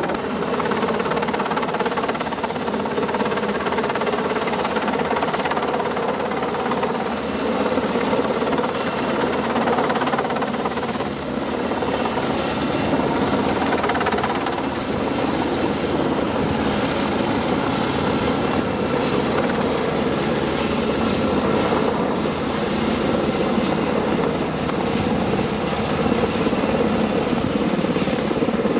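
Helicopter hovering overhead for a sling-load lift: a steady, dense rotor and engine noise at a constant level.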